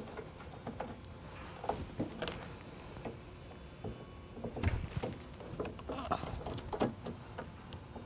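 Scattered small clicks, taps and rubbing of pliers and a ferrule-tipped wire being worked into the spring-clamp AC terminal block of a Victron MultiPlus inverter charger, with one louder knock about halfway through.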